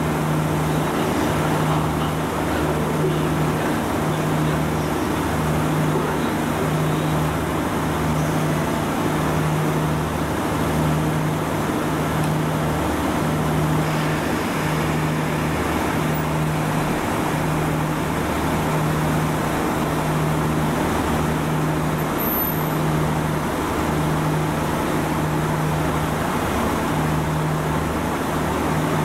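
Diesel engines of a KiHa 66 series railcar idling at the platform: a steady low drone with an even, slow beat, swelling roughly once a second.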